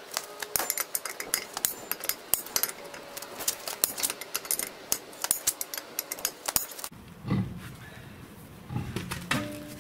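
Four-way lug wrench working lug nuts off a car wheel: quick, irregular metallic clinking and rattling of the wrench and loose nuts. About seven seconds in it stops abruptly, giving way to a few dull thumps.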